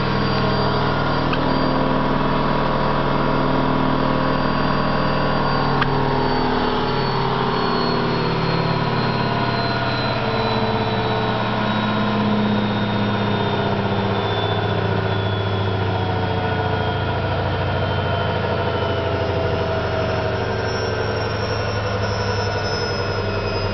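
Candy GO4 127 DF front-loading washing machine spinning, a steady loud rumble and hum from the drum with a faint high whine that slowly falls in pitch, and a single click about six seconds in. The noise comes from worn drum bearings, which the owner says are not really that bad, just loud.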